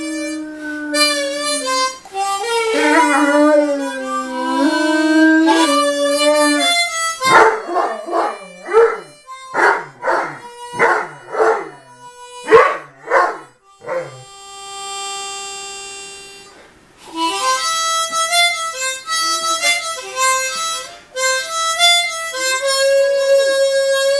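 Harmonica playing the blues while a Great Dane puppy howls along, its howls sliding and wavering in pitch against the notes. In the middle the harmonica plays a run of short rhythmic chords, about two a second, then holds one long note before going on with a stepped melody.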